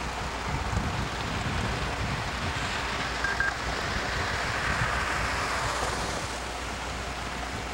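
Steady rumble and hiss of a vehicle travelling on a wet road, heard from inside it, with a brief high double beep about three seconds in.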